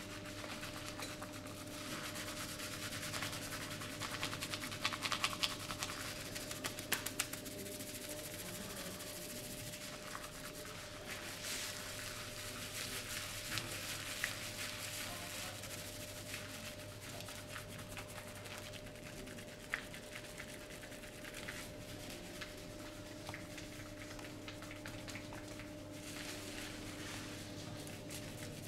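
Hands rubbing and kneading skin during a massage, with irregular swishing strokes and a run of sharp slaps or pats about four to seven seconds in. A steady low hum sits underneath.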